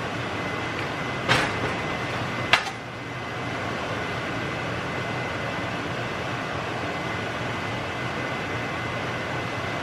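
Steady whoosh of a kitchen exhaust fan with a faint high whine. Two sharp knocks about a second apart come from the oil bottle and the frying pan being handled at the stove.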